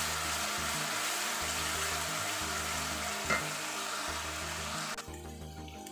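Chopped onion, green chilli and ginger-garlic paste sizzling in hot oil in a steel pot while being stirred with a spatula, with a light knock a little past three seconds. The sizzle cuts off suddenly about five seconds in.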